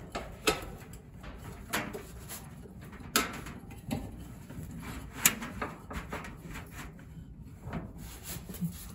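Hands fitting a new drive belt around a Whirlpool dryer's motor pulley and spring-loaded idler pulley: scattered sharp clicks and light knocks of the metal parts, with soft rubbing in between.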